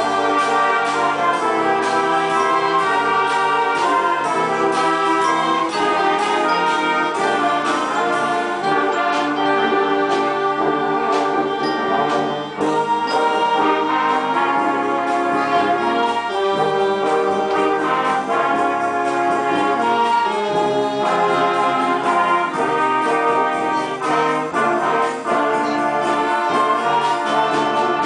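Community concert band playing live, clarinets and brass together in one continuous passage of held notes and chords.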